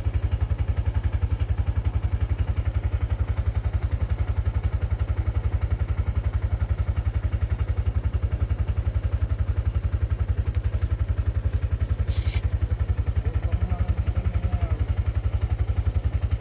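An engine idling steadily close by, a low, even beat of about ten pulses a second that never changes. A single sharp click comes about twelve seconds in.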